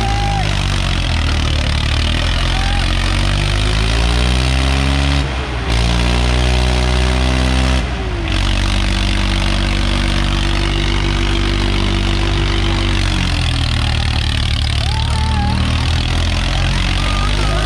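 Swaraj 855 tractor's three-cylinder diesel engine revving hard under load as the tractor spins on its rear wheels. Its pitch climbs, drops briefly about five and eight seconds in, holds high, then sags and climbs again near the end.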